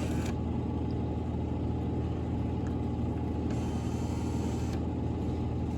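Steady low mechanical hum with no clunks or thuds.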